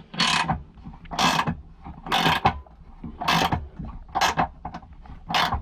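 A 19 mm ratcheting wrench clicking on the exhaust gas temperature sensor in short rasping strokes, about one a second, as the sensor is worked loose.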